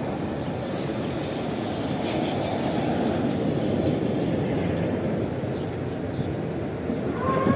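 Tatra T3SU tram rolling up to the stop and drawing to a halt, a steady rumble of steel wheels on the rails. Near the end there is a brief louder sound with a short higher tone.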